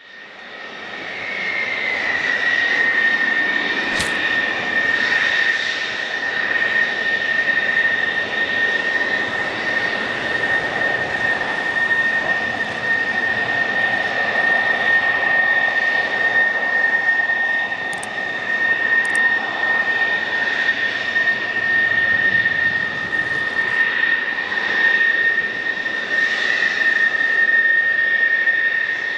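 F-16C fighter jet engines at taxi power: a steady high-pitched whine over a broad rushing roar, fading in over the first couple of seconds. A single sharp click comes about four seconds in.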